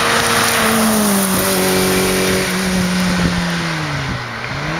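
Škoda 130-series rally car's four-cylinder engine as the car passes close at speed, its note sliding lower in pitch as it goes by, with a rush of road and wind noise loudest about the first second. Near the end the engine note dips and then rises again.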